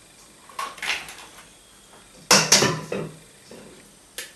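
Eggs being knocked against the rim of a stainless steel mixing bowl and cracked open: a few short sharp knocks, the loudest two close together about two seconds in, with lighter shell clicks after.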